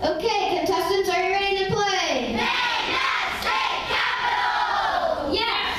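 Many children's voices calling out together in unison, a drawn-out group shout held for about two seconds and then sliding down in pitch, followed by more group shouting.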